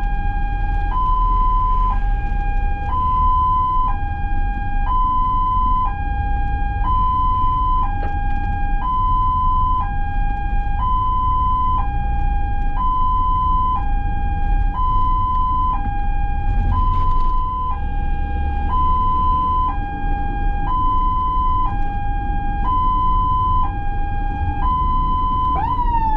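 Ambulance siren in its two-tone hi-lo mode, alternating between a lower and a higher tone about once a second. Near the end it switches to a wail that sweeps up and then falls. Low road and engine rumble runs underneath.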